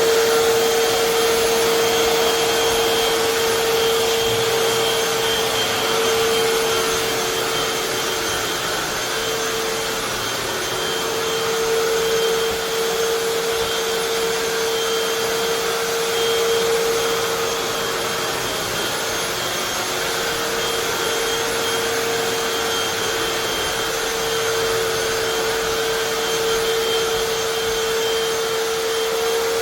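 Hoover FloorMate Deluxe hard floor cleaner running steadily: the suction motor and spinning scrub brushes give an even rushing whine with a steady hum under it.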